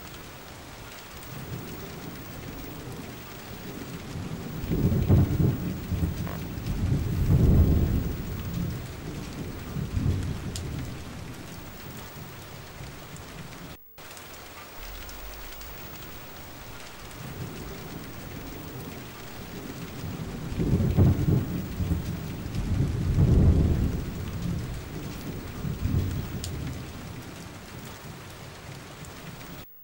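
Steady rain with rolling thunder: two long, low rumbles, each swelling in a few surges and fading over several seconds. The sound cuts out for an instant midway and the same rain-and-thunder passage starts over.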